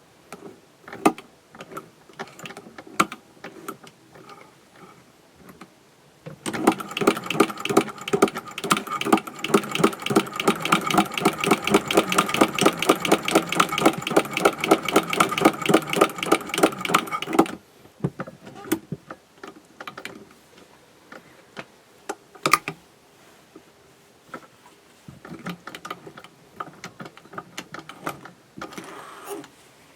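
Cast iron Singer 201K sewing machine running with its ruffler attachment fitted, stitching steadily for about eleven seconds, starting about six seconds in and stopping abruptly. Scattered clicks and knocks from handling the machine come before and after the run.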